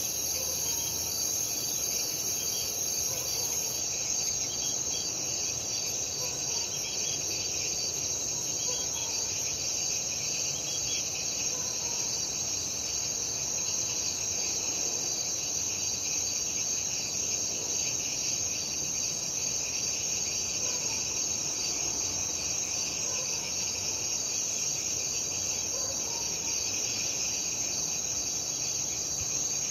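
Night chorus of crickets chirping in a steady, dense, high-pitched trill, with frogs calling faintly every few seconds beneath it.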